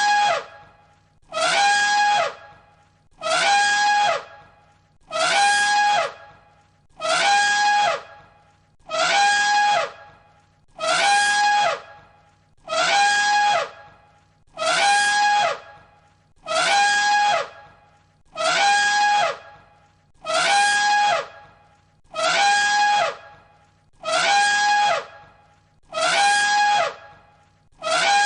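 Elephant trumpeting, the same short call repeated as a loop about every two seconds. Each blast holds one high pitch, then falls away at its end.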